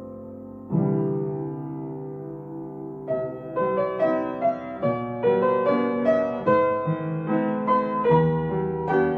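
Piano music: a held chord fades, a new chord is struck about a second in, then a flowing line of single notes, several a second, runs on from about three seconds in.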